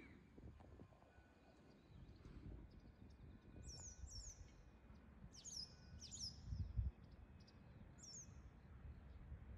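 Faint bird calls: short, high chirps that slide downward, in three brief bouts, over a faint low outdoor rumble.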